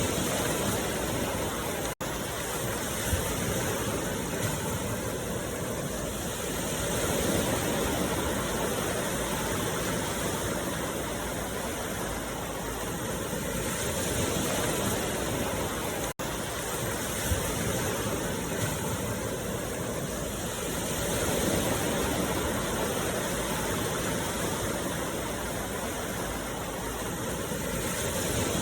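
Steady rushing noise from a meditation sound track. It swells and eases about every six or seven seconds and cuts out for an instant twice.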